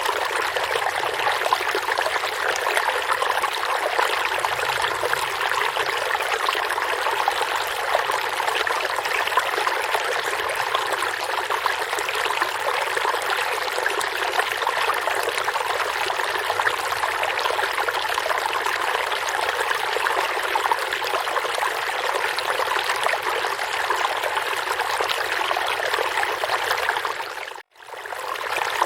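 Forest stream flowing steadily, a continuous rushing and trickling of water over rocks. It fades out briefly near the end and returns at once.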